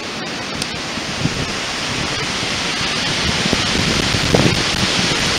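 Strong storm wind rushing through the leaves of a forest canopy, swelling louder toward the end, with a few low buffets of wind on the microphone about four seconds in.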